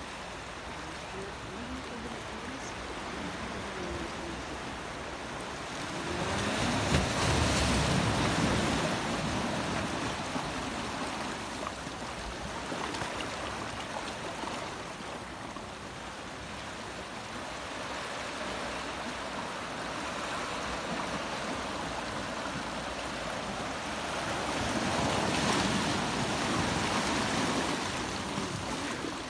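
Wind rushing through the forest in a steady hiss, swelling in two gusts, about six seconds in and again about twenty-four seconds in.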